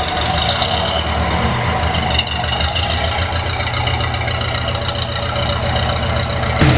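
1965 Rolls-Royce's V8 idling steadily through its new hand-built dual exhaust with quiet-flow mufflers: a low, even exhaust note.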